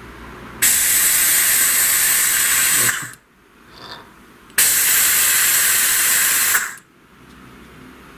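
Compressed air hissing in two loud blasts of about two seconds each, blown into a VAZ-21099 cylinder head's ports to test whether the valves hold a seal.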